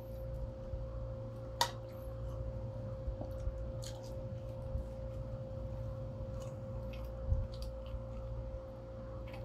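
Eating sounds of pepperoni pizza: quiet chewing and mouth smacks, with a few short sharp clicks, the loudest about one and a half seconds in and again near the end. A steady hum runs underneath.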